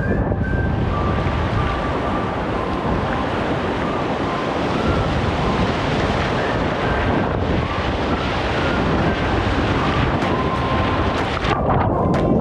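Whitewater rushing and wind buffeting a helmet-mounted action camera's microphone as a kayak runs a rapid. In the last second come sharp splashes and knocks as the kayak flips and the camera goes under water.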